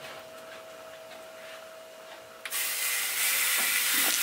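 Faint steady hum from the preheated oven, then about halfway through a loud sizzle starts suddenly as the seasoned pork leg goes onto the hot rack, with a couple of soft knocks near the end as it is set down.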